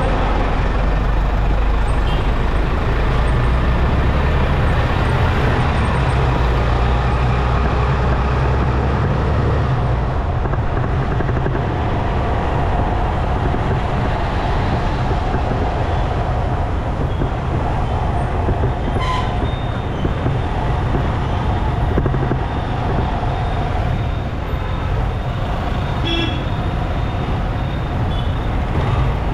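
City road traffic heard from a moving motorcycle: a steady rumble of engines and road noise, deepest for the first ten seconds or so. A few short horn toots come in the second half.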